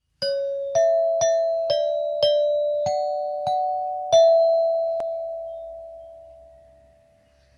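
Short intro jingle of eight struck, bell-like chime tones, about two a second, stepping up and down a little in pitch. The last note rings on and fades away slowly over about three seconds.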